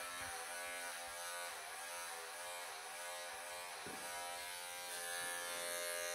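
Wahl electric pet clippers running with a steady buzz, the pitch dipping slightly now and then while clipping a cat's long coat.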